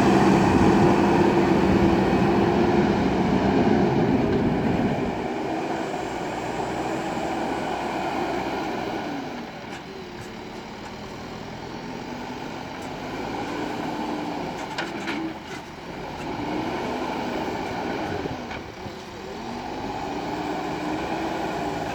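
JCB backhoe loader's diesel engine working, loud for the first five seconds and then dropping back, with a whine that rises and falls several times and a few sharp knocks about two-thirds of the way through.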